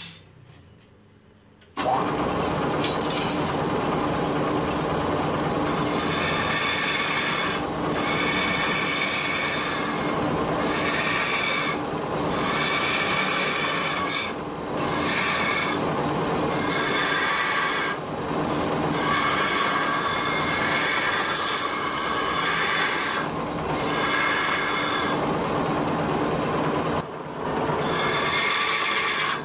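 Turning gouge cutting into a spinning wooden blank on a lathe: a loud, harsh scraping with steady ringing tones running through it, starting suddenly about two seconds in. The scraping breaks off for a moment every few seconds and resumes.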